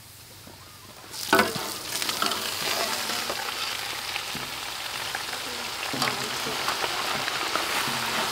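A hot wok starts sizzling as a trayful of leafy greens and shredded carrot is tipped in about a second in. The steady sizzle carries on while a metal spatula stirs the vegetables.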